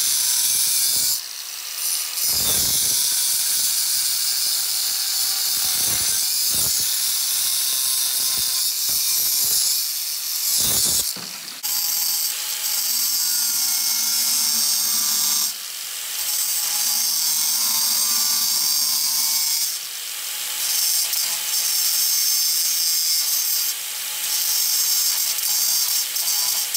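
Handheld angle grinder with a thin cutoff wheel cutting steel, the disc running against the metal with a high, hissing grind and a few brief breaks.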